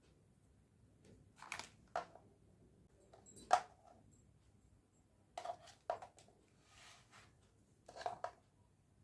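Small plastic toy kitchenware and food pieces being handled, giving a handful of short clicks and clatters, the loudest about halfway through, with a soft rustle of handling near the end.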